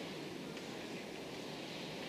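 Faint, steady rolling rumble of a container freight train receding into the distance, with a light hiss of background noise.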